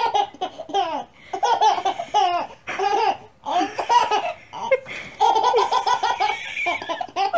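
A baby laughing in a string of bursts, with a quick run of rhythmic giggles about five seconds in.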